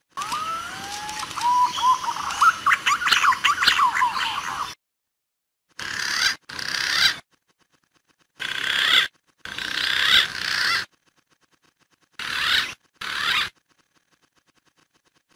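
Green pigeon (punai) lure-call recording. It opens with rising whistled glides and a dense run of high squeaky notes, then breaks into about six short bursts of calls cut apart by dead silence, like an edited loop.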